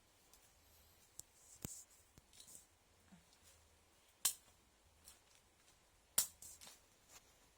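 Scattered sharp snips of small cutting blades such as scissors or clippers. The three loudest come about two seconds apart, with fainter clicks between them.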